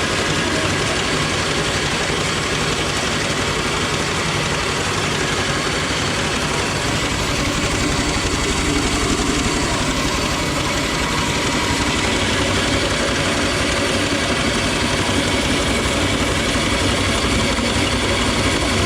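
An 80-year-old bulgur mill running steadily while cracking wheat into bulgur: an even machine drone with a fast low pulsing.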